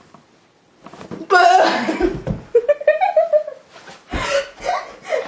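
Teenage boys shouting and laughing during a pillow fight, with two dull thumps about two and four seconds in.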